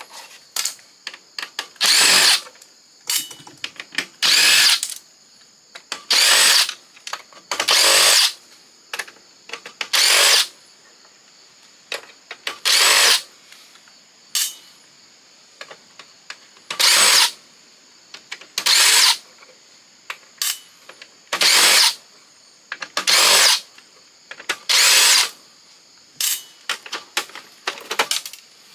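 Power drill running in about a dozen short bursts, backing screws out of a Canon fax machine's casing and metal parts as it is taken apart. Small clicks of the loosened screws and parts being handled fall between the bursts.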